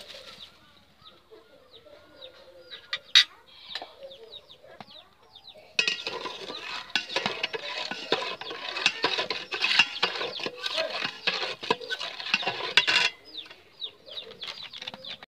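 A metal spatula stirs and scrapes around a metal cooking pot in a fast run of scraping and clattering strokes, from about six seconds in until it stops suddenly near thirteen seconds. A single sharp clink of metal sounds about three seconds in.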